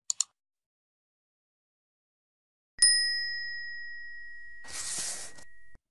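Subscribe-button sound effects: a quick double mouse click, then about three seconds in a single bright bell ding that rings on steadily. A short hiss rises over the ringing near the end, and the ringing cuts off suddenly.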